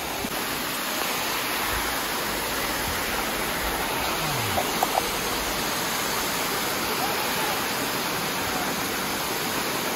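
Small waterfall pouring down: a steady, unbroken rush of falling and splashing water.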